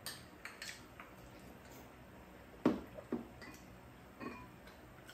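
Spoons and chopsticks tapping and clinking against bowls while eating: a few scattered short clinks, the loudest about two and a half seconds in.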